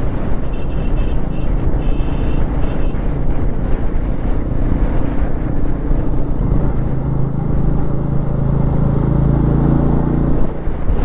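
Royal Enfield Meteor 350's single-cylinder engine running on the move, under heavy wind buffeting the microphone in a windstorm. The engine note comes through steadier and clearer from about halfway through.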